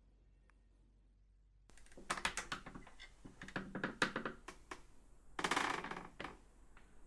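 A wooden door creaking and clicking as it is slowly pushed open, in irregular spurts of rapid clicks with the loudest stretch about five and a half seconds in.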